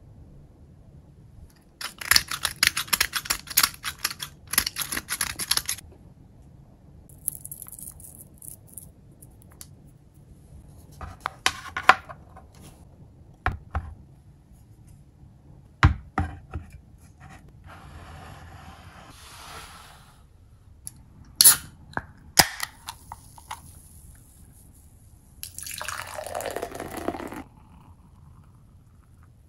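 A run of tableware handling sounds: a few seconds of rapid rattling near the start, a few knocks on a wooden tray, then two sharp clicks and, near the end, about two seconds of beer being poured into a glass mug.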